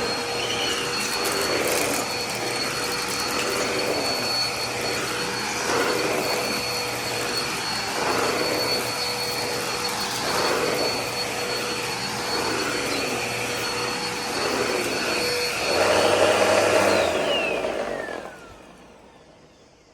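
Dirt Devil Power Express compact upright vacuum running with a steady high motor whine, its sound swelling and easing in a regular rhythm as it is pushed back and forth over the floor in passes. Near the end it is switched off and the whine falls away as the motor spins down.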